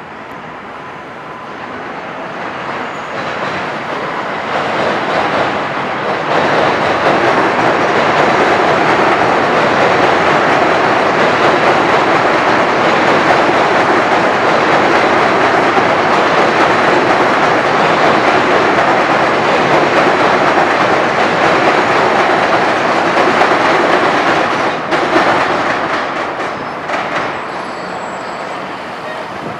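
New York City Subway 7 local train passing on an elevated steel structure, with a dense rumble and rattle of wheels on rail. It builds over the first several seconds, holds loud for most of the pass and fades away near the end.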